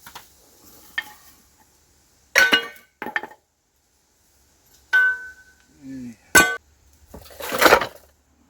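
Irregular metallic clanks and clinks of steel tools and axle parts being knocked and handled, about six hits, a couple leaving a short bright ring, with a brief scrape near the end.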